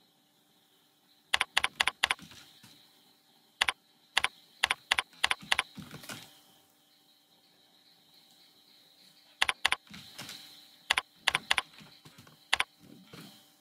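Typing on a computer keyboard: quick runs of sharp key clicks in several bursts, separated by pauses of a second or more.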